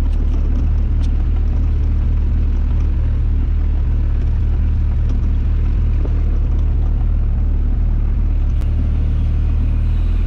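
Small fishing boat's engine running steadily with a low hum, with a few faint ticks over it.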